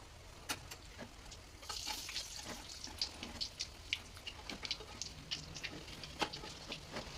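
Bakwan fritters frying in hot oil: a steady sizzle with irregular sharp crackles and pops, busiest about two seconds in.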